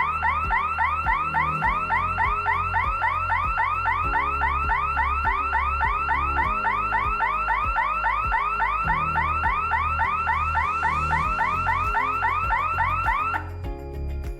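Electronic fire alarm sounder on a gas-release extinguishing control panel, sounding a rapid rising whoop about four times a second, then cutting off near the end. Background music plays underneath.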